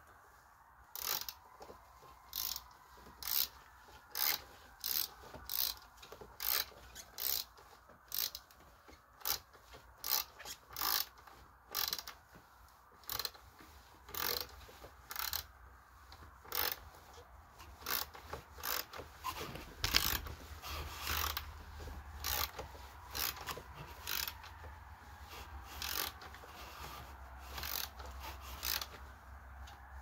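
Socket ratchet being worked in short strokes, its pawl clicking in quick bursts about once or twice a second as a fastener is turned.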